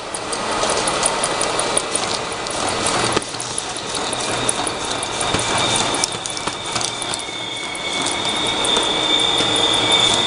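High-speed automatic round-bottle labeling machine and bottle feeder running: the conveyor carries small plastic bottles through the labeling belt with a continuous dense rattle of clicks as the bottles knock together. A steady high whine comes in about three and a half seconds in.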